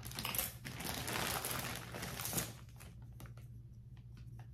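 Packaging crinkling as it is handled for about two and a half seconds, then a few light clicks.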